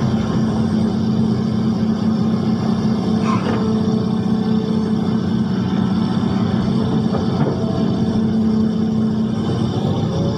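An engine running steadily at a constant speed, with an even, unchanging hum.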